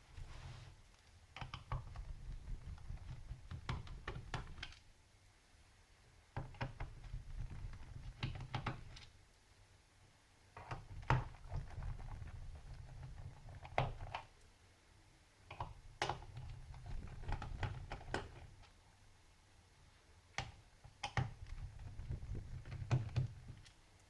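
Small screws being undone one after another from a laptop's plastic bottom case with a hand screwdriver: bouts of a few seconds of scraping handling noise and small clicks and knocks, with short pauses between screws.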